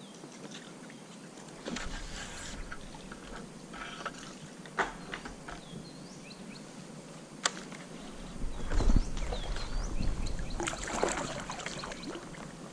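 Kayak on the water: paddle splashes and water sloshing, with a few sharp knocks, growing busier and louder in the last few seconds.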